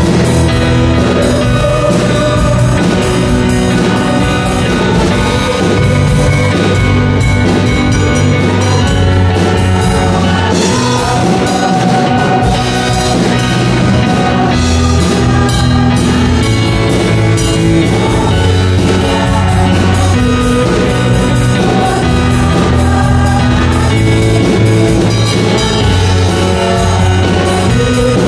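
Live worship band playing a praise song: electronic keyboard with drum kit and guitar, keeping a steady beat.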